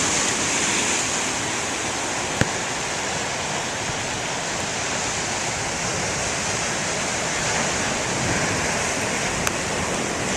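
Heavy storm surf: a steady roar of breaking ocean waves mixed with wind, with a sharp tick about two seconds in and another near the end.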